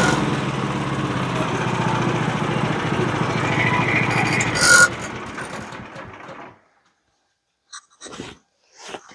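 Small gas engine of a Woodland Mills bandsaw mill running steadily, then shut off about five seconds in and winding down to a stop over a second or so. A few faint knocks follow near the end.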